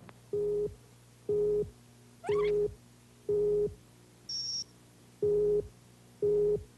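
Countdown beeps on a TV commercial's station leader: a short mid-pitched tone about once a second, six in all, over a steady low hum. In place of one beep near the middle there is a single much higher beep, and a quick rising chirp runs over the third beep.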